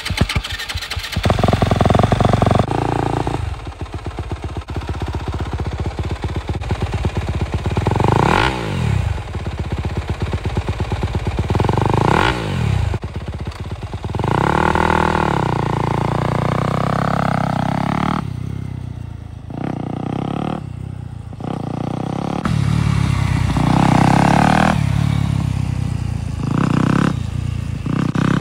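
Yamaha dirt bike engine running, with the throttle blipped several times so that the revs rise and fall again.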